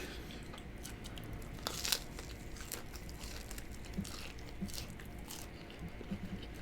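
A person chewing crunchy food close to the microphone, with scattered crisp crunches and small clicks.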